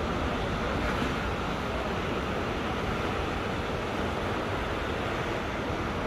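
Rough sea surf breaking and churning around coastal rocks: a steady wash of noise without pauses.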